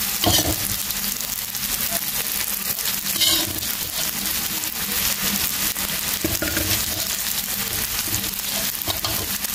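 Frog pieces sizzling steadily as they fry in hot oil and red curry paste in a metal wok, with occasional scrapes and clicks of a metal spatula.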